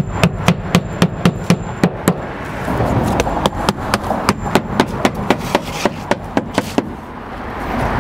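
Hand hammer driving roofing nails through an asphalt starter shingle into a plastic intake vent: a fast run of sharp taps, about three to four a second, stopping near the end.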